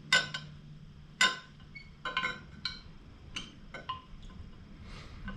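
A knife blade clinking against the sides of a glass dish of ferric chloride etchant as it is moved about in the liquid: a run of irregular light clinks with a short glassy ring, the two loudest near the start and at about a second in.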